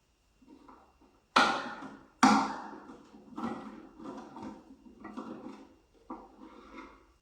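Clunks and clatter of hard plastic parts of a Geberit concealed cistern being handled, with two sharp loud knocks about a second and a half and two seconds in, then a run of softer clunks.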